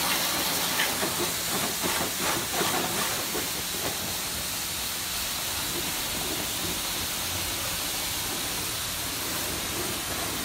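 High-pressure washer jet hissing steadily as the spray hits the RC truck and the wet paving, a little louder and more uneven in the first few seconds.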